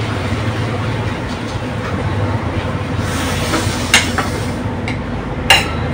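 Steady rushing noise with a low hum, broken by two sharp knocks about a second and a half apart in the second half.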